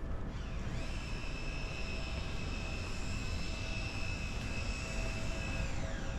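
Electric train passing, its motors giving a high whine that glides up, holds steady for about five seconds, then glides down near the end.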